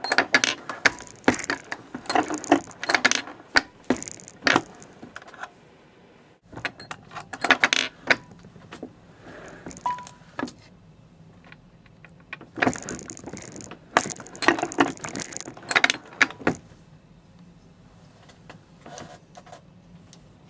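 Metallic clicking and clattering from a turret reloading press as its handle is worked and its turret indexes, in three bursts with short pauses between, then only a few faint clicks.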